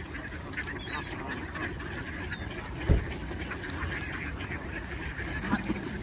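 A large mixed flock of mallards and Canada geese calling together, a steady chatter of quacks with honks mixed in. A single thump about three seconds in.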